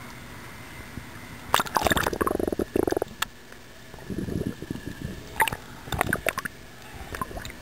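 Seawater sloshing and bubbling around a camera at the surface and as it dips underwater: a steady wash at first, then a loud gurgling stretch, a lower bubbling rumble and a few sharp knocks near the end.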